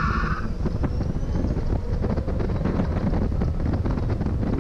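Tesla-powered DF Goblin kit car accelerating hard: a tire squeal that cuts off about half a second in, then a loud rush of wind on the open car with a faint rising electric motor whine.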